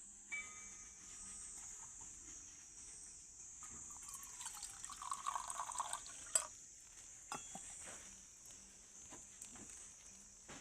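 Faint trickle of liquid swelling for a couple of seconds around the middle, ended by a sharp click. Under it runs a steady high insect drone.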